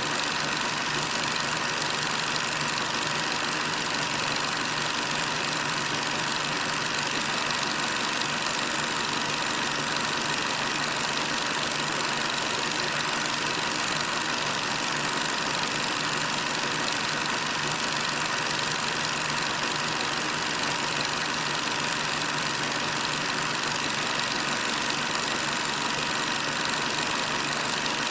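Steady, unchanging engine noise of a column of armoured vehicles driving past, heard through the hiss of an old film soundtrack.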